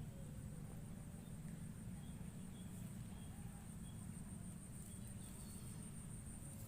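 Steady high-pitched insect trilling over a constant low rumble, with a few faint short chirps.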